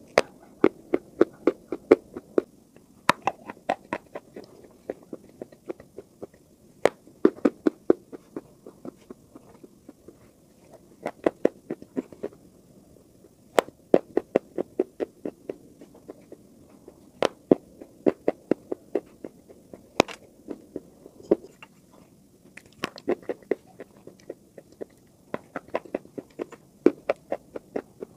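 Sticks of school chalk being bitten and chewed: runs of quick, sharp crunches, several a second, broken by short pauses.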